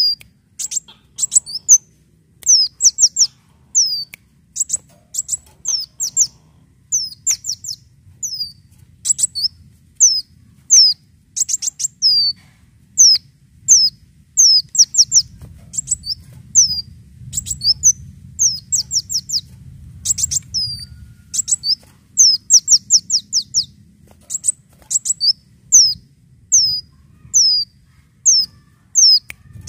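Male sunbird (kolibri daun) singing: a long, unbroken run of short, high chirps that each slur downward, mostly in quick clusters of two to six notes. A faint low rumble lies underneath.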